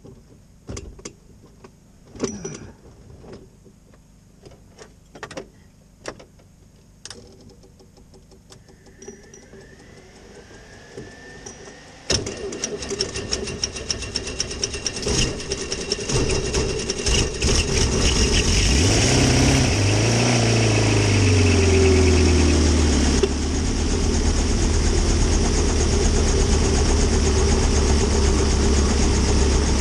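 Engine of a small homebuilt helicopter being started: scattered clicks and knocks for about twelve seconds, then the engine catches suddenly and runs, its pitch shifting as the main rotor spins up, settling into a steady run for the last several seconds.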